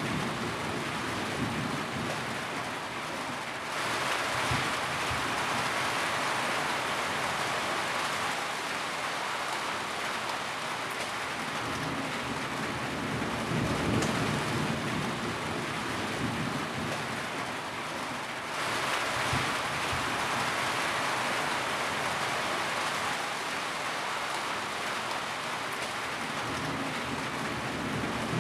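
Steady rain falling, a dense even hiss with low rumbling underneath. The hiss thickens about four seconds in and again about two-thirds of the way through.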